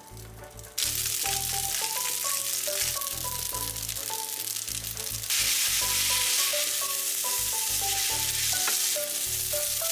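Boiled spaghetti frying in butter in a frying pan: a loud sizzle breaks out about a second in as the pasta hits the hot fat and grows louder about halfway through as it is tossed with a little sauce. Light background music with a plucked melody plays underneath.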